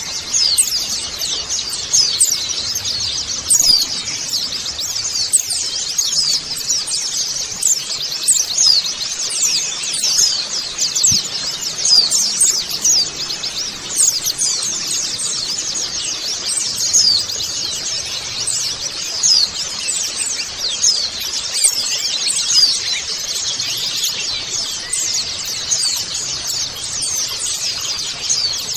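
A group of white-eyes (pleci) twittering together: a dense, unbroken chatter of many short, high-pitched chirps overlapping one another.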